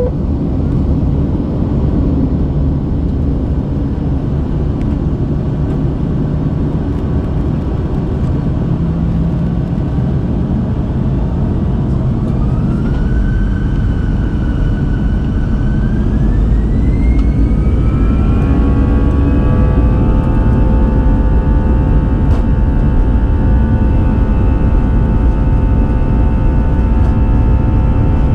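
Airbus A320 jet engines heard from inside the cabin: a heavy rumble with a whine that rises in pitch partway through, then settles into a steady whine of several tones as the engines spool up, typical of thrust being set for the takeoff roll.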